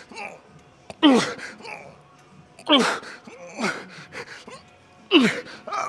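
A man grunting and groaning with effort on each pull of a seated cable row: three loud groans that fall in pitch, each followed by a shorter, quieter breath or grunt.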